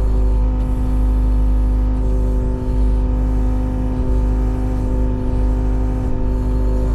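Kubota KX019-4 mini excavator's three-cylinder diesel engine running steadily under load, with a steady hydraulic whine as the boom and bucket are worked, heard from inside the cab.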